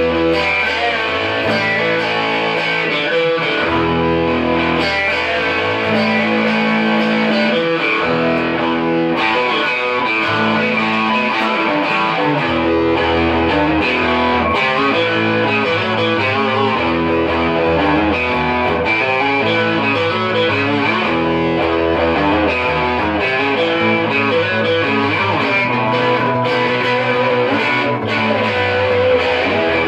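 Music led by electric guitar, with chords and low notes changing about every two seconds at a steady loudness.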